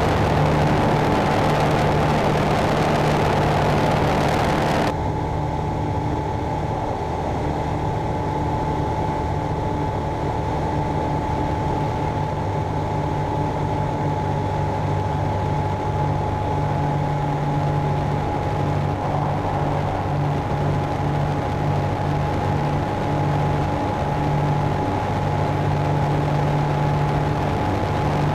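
Land Africa ultralight's Rotax engine and propeller droning steadily at cruise power, heard from inside the open cockpit. The hiss above the drone falls away abruptly about five seconds in, while the engine note holds steady.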